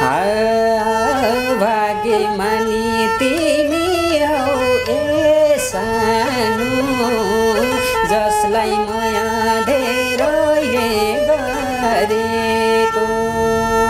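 A man singing a Nepali folk-style melody to the accompaniment of a sarangi, the bowed Nepali folk fiddle. The line is ornamented and bends in pitch, with several long held notes.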